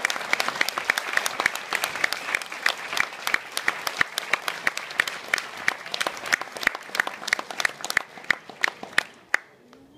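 Audience applauding, with one pair of hands clapping close by at about three claps a second; the applause dies away near the end.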